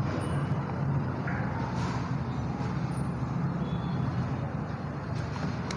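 Steady low background rumble, with faint scrapes of a duster wiping a whiteboard.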